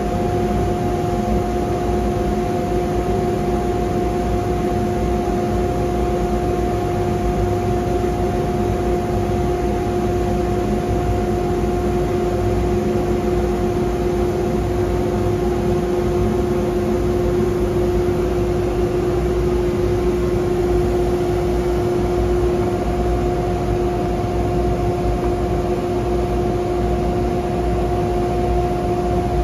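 Steady machine hum from a CNC router station with its dust collector running: an even rush of noise with a steady mid-pitched tone and a higher overtone.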